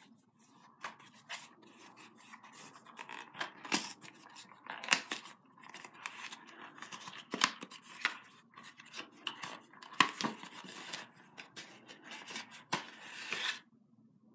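Paper and card handled close up: crackling and rustling as a small cardstock envelope's flap is opened and a folded care-info booklet is slid out. It stops abruptly near the end.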